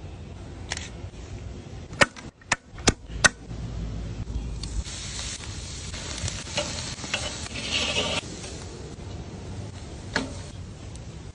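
Skewered steak pinwheels sizzling on a hot charcoal grill grate, a hiss that swells about halfway through and fades near the end. Four sharp clicks come before it and one more near the end.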